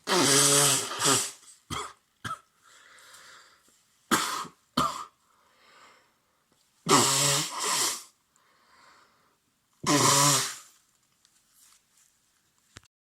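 A man with a head cold coughing: a long loud bout at the start, another about seven seconds in and a third about ten seconds in, with short single coughs and breaths in between.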